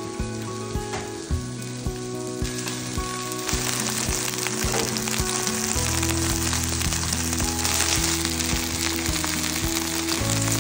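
Salmon fillet sizzling as it fries in a non-stick frying pan, the hiss starting suddenly about a third of the way in and then holding steady. Background music with a steady beat plays throughout.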